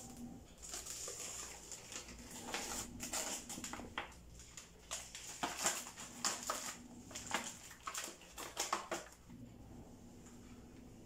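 Plastic packaging of frozen kunafa dough crinkling and rustling as a knife slits it open and the plastic tray is pulled out: irregular crackles, busiest from about two to nine seconds in, over a faint steady hum.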